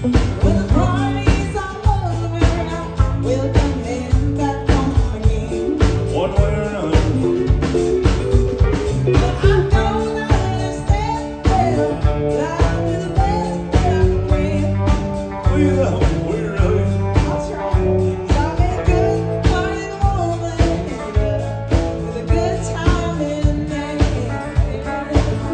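Live country band playing a song: acoustic guitar, electric bass and a drum kit on a steady beat, with singing over it.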